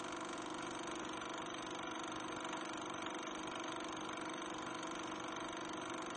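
Steady electronic hiss with a low hum of several steady tones, unchanging throughout and with no music or voice: the background noise of an old video recording.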